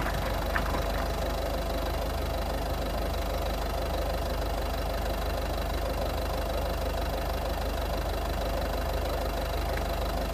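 Citroën DS3 110 HDi's 1.6-litre four-cylinder diesel idling steadily, with the fine repeated clicking that the owner is trying to trace.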